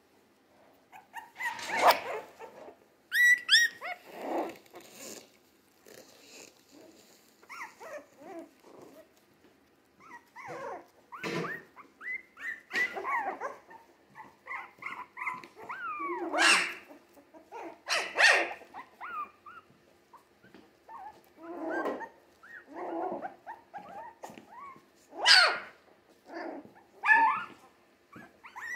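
Three-week-old Jack Russell terrier mix puppies yipping and whimpering in short, scattered high calls. The loudest calls come about 2 seconds in, twice around the middle, and near the end.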